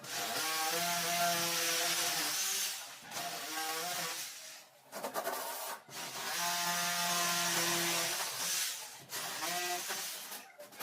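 Power drill running in four runs of one to three seconds with short stops between, its motor holding a steady pitch.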